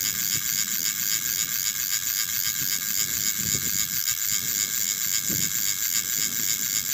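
Fishing reel being wound steadily, its gears giving a continuous high whirr with a fast, even pulse, as a hooked fish is reeled in.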